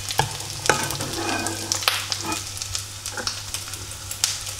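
A metal ladle clinking and scraping against a pan and a glass bowl while scooping out tapioca meatballs, with several sharp clinks scattered through, over a low steady hum.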